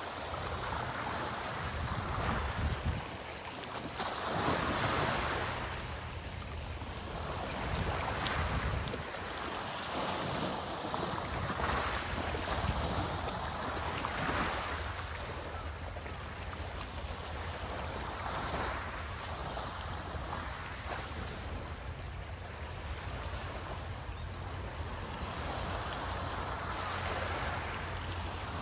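Small sea waves washing onto the shore, swelling and fading every few seconds, with a low wind rumble on the microphone.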